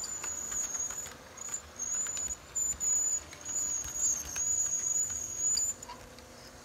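Model train running on the layout track: a thin high-pitched whine that comes and goes, over light scattered clicking of wheels on the rails, stopping about six seconds in.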